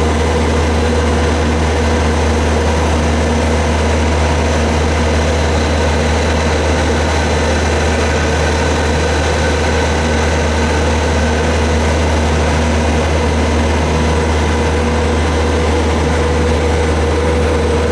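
Road roller's diesel engine running steadily at idle, a constant low hum with no change in pitch.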